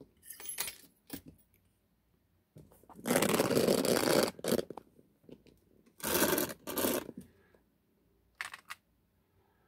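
Small metal picking tools and lock parts handled on a bench mat along with a leather pouch: a few light clicks, then two bouts of scraping and rustling about three and six seconds in, and a last faint click near the end.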